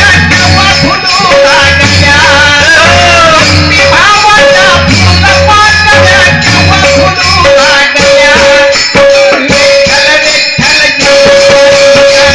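Music: a wavering melody over a held note, with percussion and a pulsing bass line that drops out about two-thirds of the way through.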